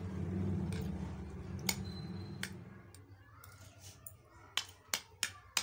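A metal spoon clinking against a glass serving bowl while someone eats, with a quick run of sharp clinks near the end. A low, muffled rumble close to the microphone fills the first half.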